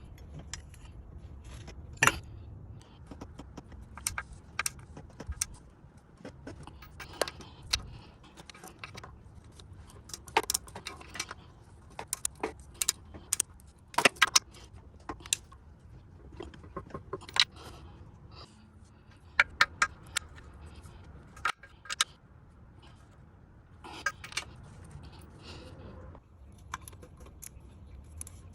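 Metal hand tools and bolts clinking and clicking at irregular intervals as a replacement engine cover is bolted on, over a low steady hum.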